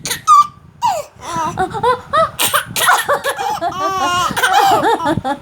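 A baby laughing with delight, a quick run of short, high giggles starting about a second in.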